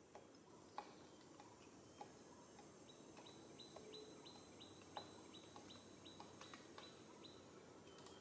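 Near silence: faint high bird chirps repeat about three times a second for a few seconds in the middle, with a few soft clicks.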